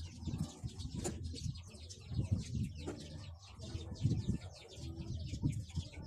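Chickens calling in the background, in a few low calls, with faint, rapid chirping of small birds above them.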